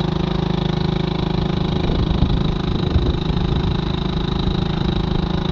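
A boat's engine running steadily at low revs, with wind buffeting the microphone about two to three seconds in.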